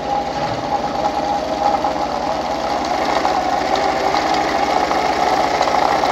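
Pfaff 230 sewing machine driven by its foot treadle, running fast to wind a bobbin: a steady, rapid mechanical whirring rattle that picks up speed in the first second and then runs on evenly.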